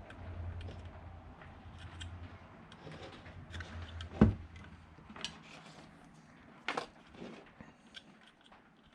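Small clicks and rattles of wires and terminal connectors being handled and hooked up, with one sharp knock about four seconds in. A low hum runs under the first four seconds and stops at the knock.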